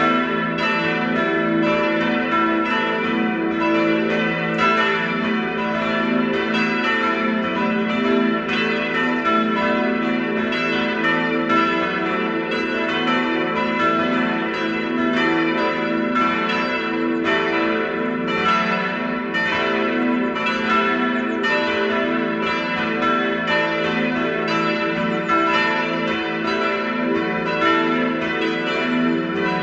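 Full peal of four swinging church bells ringing together, their strokes overlapping continuously, each note ringing on under the next.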